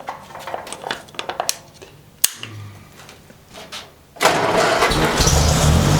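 Ferguson TEA-20 tractor's four-cylinder petrol engine being started after sitting for decades: a few scattered clicks, then about four seconds in it catches and runs steadily.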